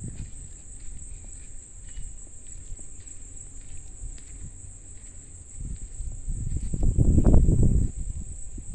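Steady high-pitched insect chorus, such as crickets trilling, throughout. A low rumble on the phone's microphone swells about five and a half seconds in, loudest around seven seconds.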